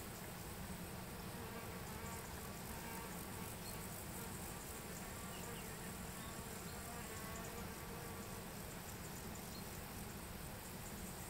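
Insects chirping steadily in the background, with a flying insect's buzz rising and fading over a few seconds in the middle.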